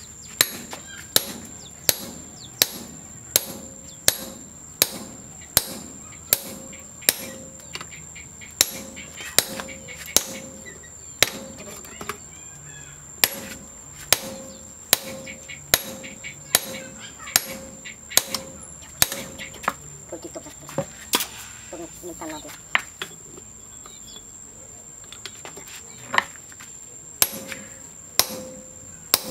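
Hand hammer blows on a red-hot steel bearing ring held in tongs on an anvil, about one and a half blows a second, each with a high metallic ring. The blows stop for several seconds about two-thirds of the way through, then start again near the end.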